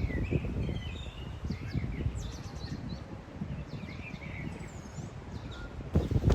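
Small birds chirping and twittering in quick short calls, over a steady low rumbling noise.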